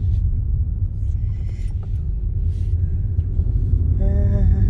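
Steady low rumble of a moving car heard from inside the cabin, road and engine noise, with a short pitched sound about four seconds in.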